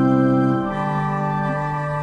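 Slow organ music of sustained held chords with no beat; the chord changes about two-thirds of a second in.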